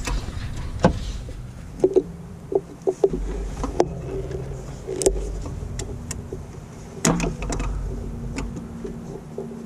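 Scattered metal clicks and taps of a screwdriver and hand tools working a stubborn screw on the motorcycle, over a steady low hum.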